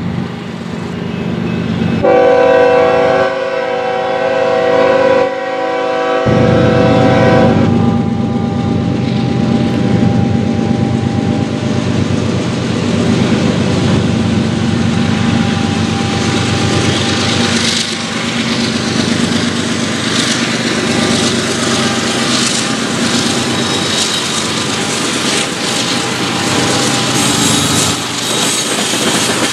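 BNSF GE ES44C4 freight locomotive approaching and sounding its Nathan K5HL air horn for about five seconds, starting about two seconds in. The diesel rumble grows as the train nears, and wheels clack over the rails in the second half.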